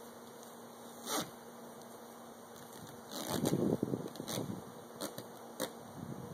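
Honeybees humming steadily and faintly, while hands rustle and scrape against a cardboard box. The handling noise is loudest from about three to four and a half seconds in, with a brief rustle about a second in and a few short clicks after.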